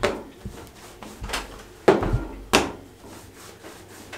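Wooden rolling pin rolling out pizza dough on a tabletop, knocking against the table: a sharp wooden knock at the start, a softer one a little over a second in, then two more close together around two seconds in.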